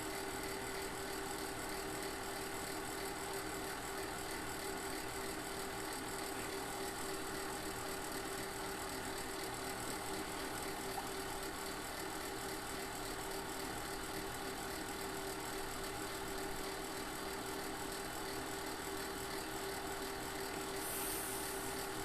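Steady hum of a running car heard from inside the cabin: an even drone with one constant tone and no change in level.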